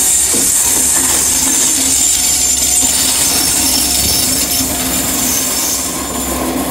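Class 67 diesel locomotive passing close by, its two-stroke V12 engine running with a steady drone and a continuous high-pitched noise from the wheels on the rails.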